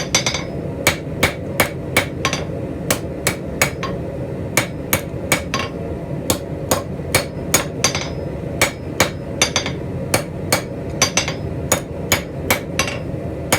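Hand hammer striking hot steel on an anvil, about two to three blows a second with a few brief pauses, as the tips of scrolling tong blanks are drawn out to a point. A steady low rush runs underneath.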